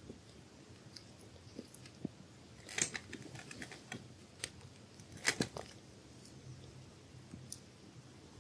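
Newborn kittens suckling at their mother cat's teats: small wet smacking and clicking sounds, with a busy cluster about three seconds in and the loudest smacks just after five seconds.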